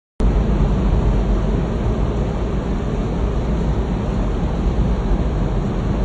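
Large axial fan of a MAY NM7000 carpet-drying dehumidifier running steadily: a constant rush of air, heaviest in the low end.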